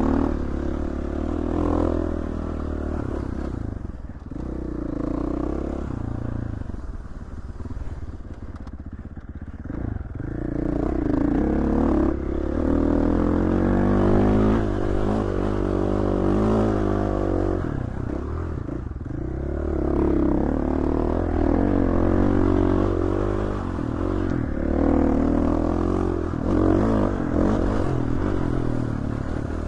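Dirt bike engine being ridden, the revs rising and falling again and again as the throttle is opened and eased off.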